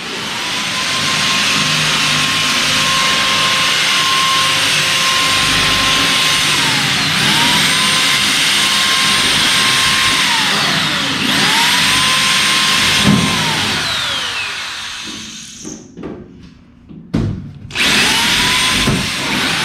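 Electric drill drilling out rivets from a steel race-car chassis: the motor runs at a steady whine with metal-cutting noise, and is released and spun up again three times. Near the end it stops for about two seconds, then starts again.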